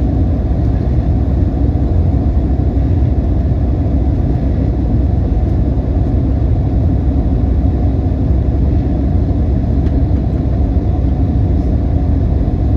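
Airliner cabin noise in flight: a loud, steady low rumble of the engines and airflow with no change.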